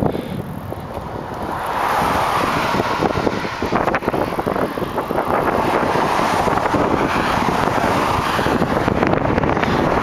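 Wind rushing over the microphone of a moving bicycle, with the tyre and engine noise of cars passing on the highway, building about two seconds in.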